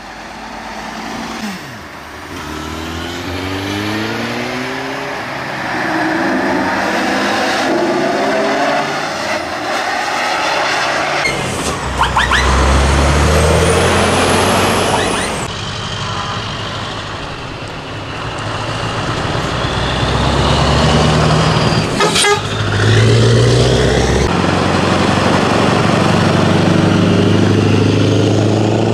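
Heavy diesel truck tractors driving past one after another, their engines climbing in pitch as they pull away and change gear.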